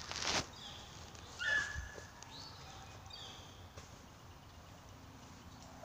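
Hunting beagle yelping a few short times while working a rabbit's scent trail, after a brief rustle of brush at the start.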